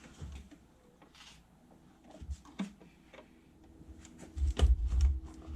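Scattered clicks and light knocks of hand tools and parts as an intake hose clamp and hose are worked loose on a car engine, with a few heavier low thumps about four and a half seconds in.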